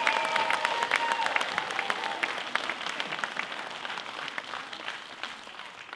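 Audience applauding, the clapping fading away gradually, with the last held notes of the music dying out in the first two seconds.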